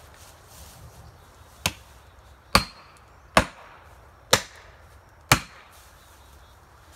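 Five sharp blows from a hand-swung, yellow-handled striking tool hitting wood at the base of a large white pine, about one a second, the first a little softer than the rest.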